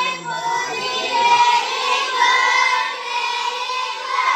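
A group of girls singing together, loud and high-pitched, holding notes in unison, cutting off suddenly at the end.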